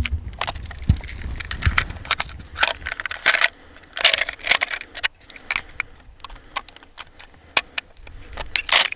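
K31 straight-pull rifle being loaded from a charger: cartridges scraping and clicking as they are pressed down into the magazine. It is an irregular run of short metallic clicks and scrapes, the loudest near the end.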